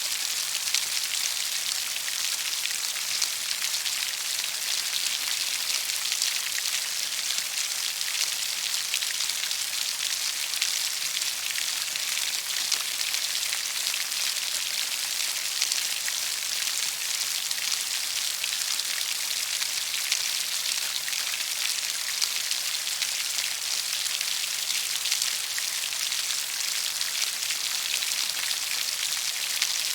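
Steady rainfall, a dense hiss of drops pattering on a surface with many tiny drop ticks and no pauses.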